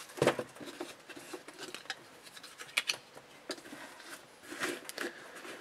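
Hands handling a suede winter boot: soft rustling with scattered small clicks and taps, the sharpest about a quarter second in and again near three seconds in.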